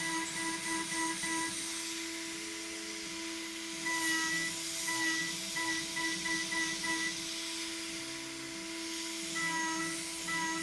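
CNC router's high-speed spindle and end mill milling aluminum: a steady whine under a higher ringing tone that comes and goes in quick pulses as the cutter moves in and out of the cut.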